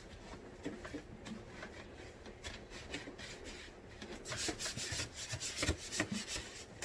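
Scrubbing strokes on a dirty refrigerator part, rubbing back and forth, louder and quicker from about four seconds in.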